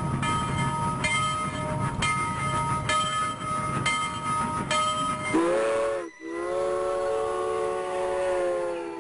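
Train rolling by with a low rumble, steady ringing tones and a wheel clack about once a second. About five seconds in, the train horn sounds a short multi-tone blast, then a long one.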